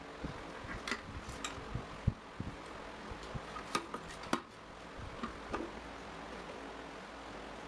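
Scattered light clicks and knocks of small fan parts being handled, over a steady low hum; the clicks thin out after about five seconds.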